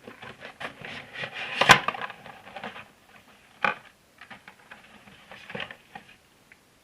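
Plastic View-Master VR viewer and its packaging being handled: rubbing and rustling with scattered small clicks, a sharp knock about a second and a half in and another a couple of seconds later.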